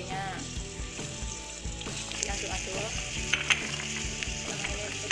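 Mushroom slices sizzling as they fry in oil in a nonstick wok, stirred with a wooden spatula. The spatula knocks sharply against the pan a few times about three and a half seconds in.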